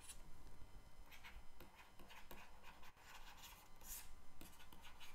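Faint scratching and tapping of a stylus writing on a tablet.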